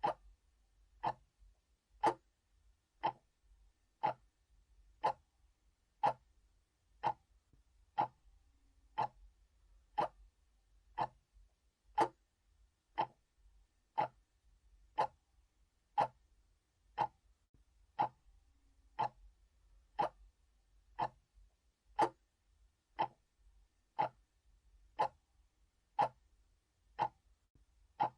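Analog clock ticking steadily, one sharp tick about every second.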